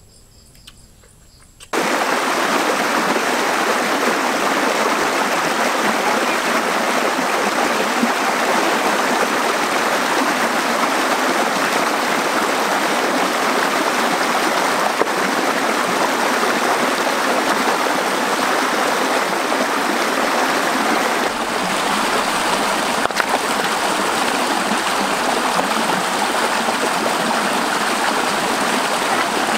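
Rushing stream water pouring over rocks in a small cascade: a loud, steady rush that starts suddenly about two seconds in.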